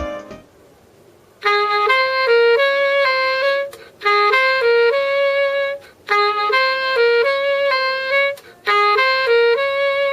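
A chime playing a short, mostly rising tune of several notes, repeated four times with brief gaps between.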